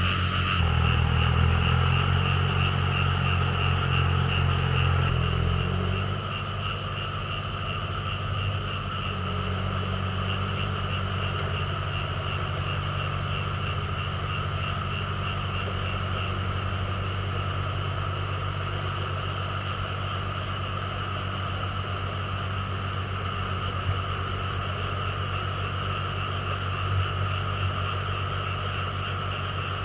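Small tractor engine running steadily under load while tilling a flooded rice paddy; the engine is a little louder for the first six seconds. A steady chorus of frogs carries on over it.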